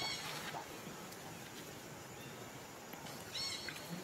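Young macaque giving two short, high-pitched squeaks, one at the very start and another about three and a half seconds in, over a steady outdoor hiss.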